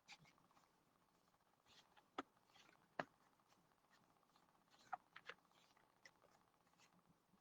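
Near silence: faint room tone broken by a few soft clicks, four of them between about two and five and a half seconds in.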